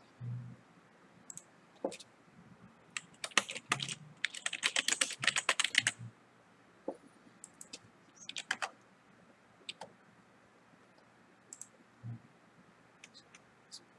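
Computer keyboard typing: a quick run of keystrokes from about three to six seconds in, with a few scattered single clicks before and after.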